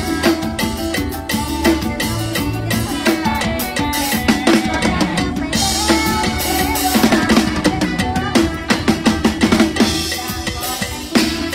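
Mor lam band music driven by a drum kit: a steady beat of bass drum and snare, breaking into a fast run of drum hits a little past halfway.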